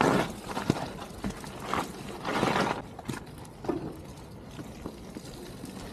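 Mountain bike descending a wet, muddy trail: a sharp thud at the start as it lands a jump, then uneven bursts of tyres rolling through wet mud and over the ground, loudest about two and a half seconds in.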